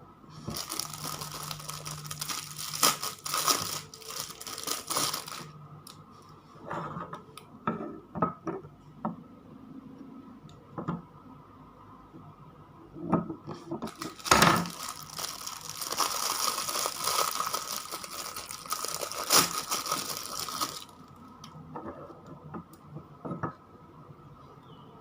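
Packaging being torn open and crinkled by hand in two long stretches, about half a second and fourteen seconds in, with scattered light knocks and clicks in between as small items are handled.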